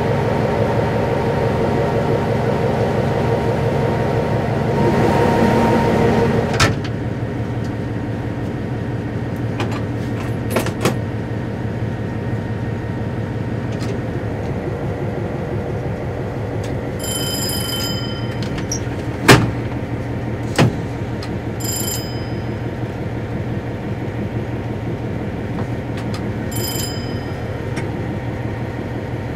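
Inside the cab of an ex-CIE A class diesel locomotive, its General Motors diesel engine running with a steady drone. The engine sound is louder for the first few seconds, then drops suddenly with a knock. Two sharp knocks come about two-thirds of the way through, and a few short high beeps sound now and then.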